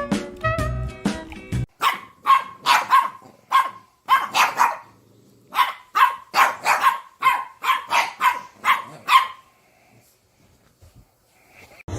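Dog barking over and over in quick, sharp barks for about seven seconds. The barks start right after background music cuts off and stop about three seconds before the end.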